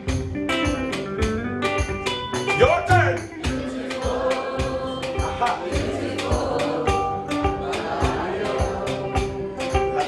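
Live music: acoustic and electric guitars strumming a steady beat while a group of voices sings along in chorus.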